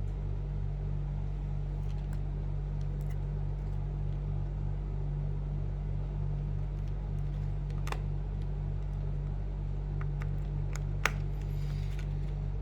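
Steady low mechanical hum with a regular pulse, and a few faint small clicks about two-thirds of the way in and near the end, as a connector is worked into its socket inside a MacBook.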